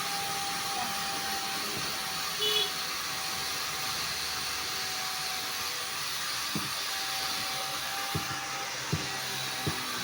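A tyre-repair tool starting abruptly and running with a steady rushing whine, with a few light knocks in the second half.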